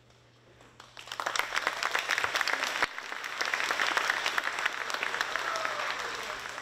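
Audience applauding. It starts about a second in, swells quickly and tapers off near the end.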